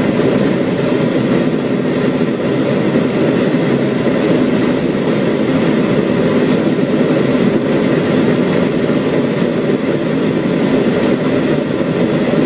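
Steady engine and road noise of an armored military vehicle driving, heard from inside the vehicle, with no sudden bangs or impacts.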